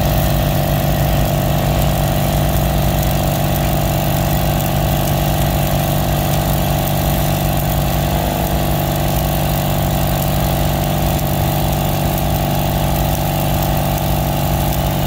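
A small engine running steadily at an even speed, the sound of an engine-driven welding machine, under the crackling hiss of arc welding on the steel rail behind a caboose wheel.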